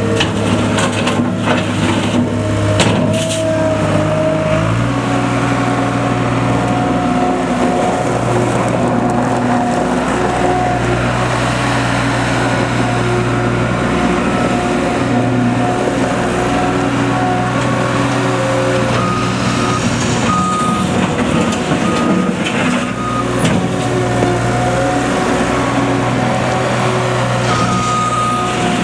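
John Deere 250 skid steer loader's diesel engine running steadily, its engine speed changing about five seconds in. Short high beeps come and go in the second half.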